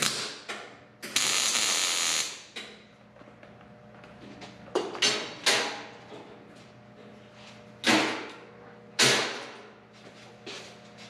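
MIG welder tack-welding a patch into a Farmall M's grille: a short crackling burst, then a steadier crackle lasting about a second. From about five seconds in come several sharp metal knocks as the grille is handled.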